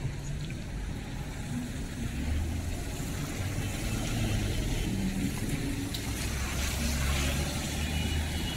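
Street traffic: a motor vehicle's engine running close by, a steady low hum that grows a little louder about two seconds in, over a continuous background hiss.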